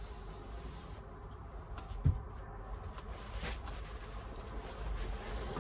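Insecticide spray hissing, which cuts off about a second in. A single low thump follows about a second later.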